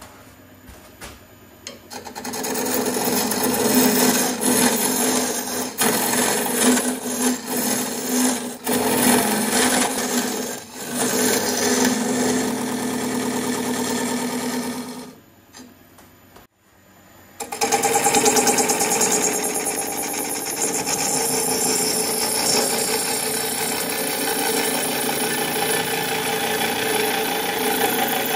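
A turning tool cutting a spinning blank of hawthorn burl cast in epoxy resin on a wood lathe: a loud, steady scraping hiss as shavings come off. The cut begins about two seconds in, breaks off for a couple of seconds around the middle, then carries on.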